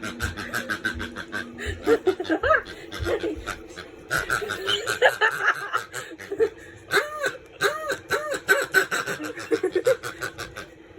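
Pig dog toy making a run of repeated grunting oinks, several short rising-and-falling calls in quick succession, with clicking throughout.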